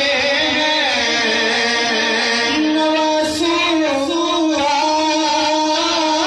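A man reciting a naat, singing long held notes that slide between pitches, amplified through a microphone and PA system.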